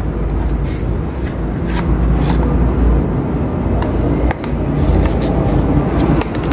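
Steady low rumble under light plastic clicks and rustles as a bicycle helmet is handled and turned over, a few separate clicks scattered through.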